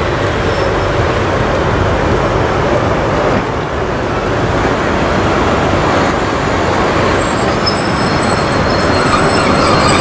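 Swedish Ra-class electric locomotive rolling slowly alongside the platform, with a steady rumble of wheels and running gear. Thin, high wheel squeal comes in about three quarters of the way through as it passes close by.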